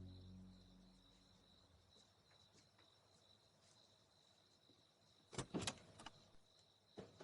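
Background music fades out, leaving near silence with a faint steady high tone. A few quick sharp clicks come about five seconds in, with one more near the end.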